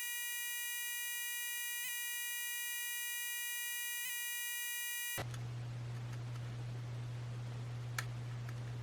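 A steady electronic drone of stacked tones with faint ticks about every two seconds, which cuts off suddenly about five seconds in. Then room hiss with a low hum, and one faint click near the end.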